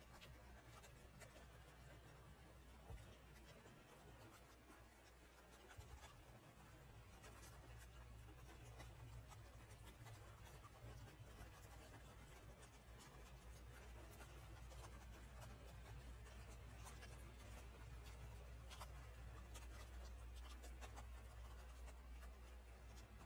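Faint light rain, its drops making fine scattered ticks over a soft hiss, with a low steady hum underneath.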